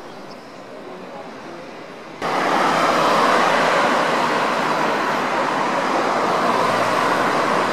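Road traffic passing close by: a steady, loud rush of car engine and tyre noise. It sets in abruptly about two seconds in, over quieter street background before it.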